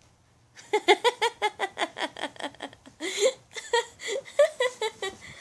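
A baby giggling in a quick run of short, high-pitched laughs, several a second, starting about half a second in and tailing off near the end.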